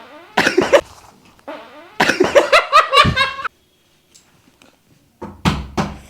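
Loud fart noises, a short one and then a longer, pulsing one about two seconds in. Near the end come a few sharp bangs on a gate.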